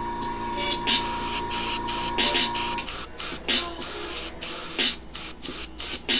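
Airbrush spraying acrylic paint in short hissing bursts as the trigger is pressed and released, about a dozen times, with a steady hum underneath that stops about halfway through.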